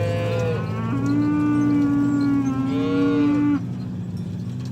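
Ox mooing: a short call that ends about half a second in, then one long, loud moo of about two and a half seconds that cuts off suddenly, over a steady low hum.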